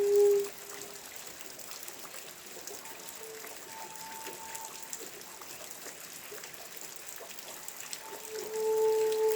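Rain falling and dripping, an even patter with many small drip ticks. A steady low humming tone cuts off just after the start, is faint in the middle, and comes back louder about eight seconds in.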